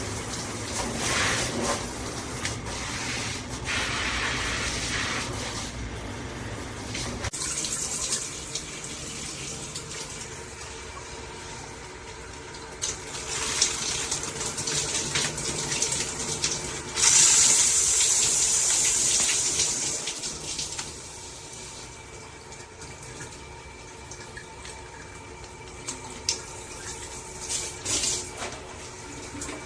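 Water spraying from a dual shower head combo set. The flow changes character abruptly about seven seconds in and runs loudest for a few seconds a little past halfway.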